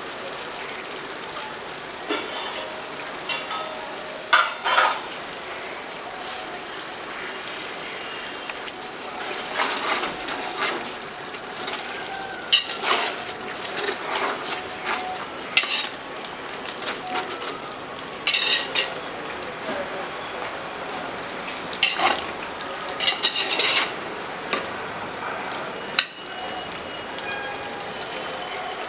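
Chicken pieces sizzling in masala in an aluminium pot, with a metal spatula clinking and scraping against the pot as the curry is stirred every few seconds.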